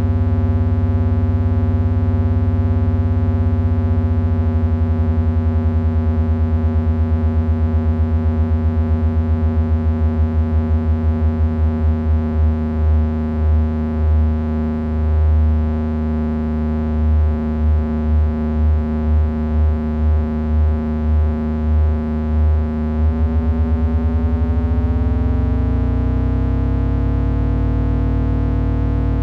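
Heavy electronic drone from three Frequency Analyzer v1 units controlled by an HP 200C audio oscillator: a thick, distorted stack of steady tones. Through the middle the tones beat against each other in a throbbing pulse that slows and then quickens again. Near the end the pitch glides upward and the throbbing smooths out into a steady drone.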